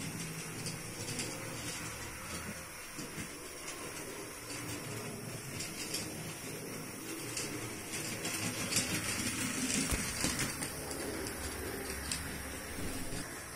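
Model electric train running on the layout's track: a steady motor hum with scattered light clicks from the wheels over the rail joints. It gets a little louder about eight seconds in as the locomotive and tank wagon pass close by.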